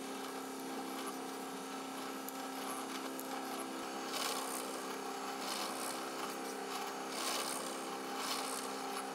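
Drill press motor running with a steady hum while a twist bit drills a screw hole into a block of hardwood, with several short bursts of cutting noise as the bit bites into the wood.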